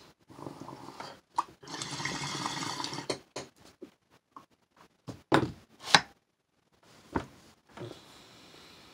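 Water bubbling in a bong as smoke is drawn through it for about a second and a half, followed by a few sharp clicks.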